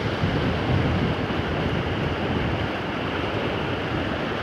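Steady rushing noise of river water flowing.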